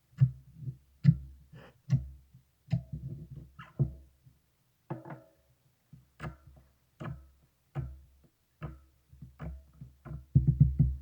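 Marbled slime being pressed and poked by hand, making short wet pops and clicks about once a second, with a quicker run of them near the end.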